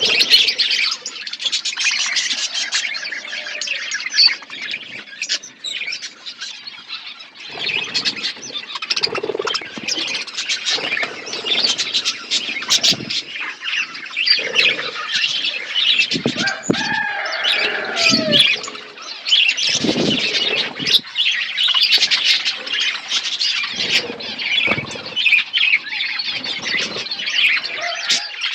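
A group of small pet birds chirping and twittering without pause, with bouts of wing fluttering now and then and a louder call about two-thirds of the way through.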